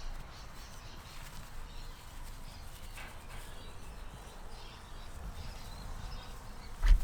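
Faint sounds of young German wirehaired pointer puppies over a low steady background, with one short low thump near the end.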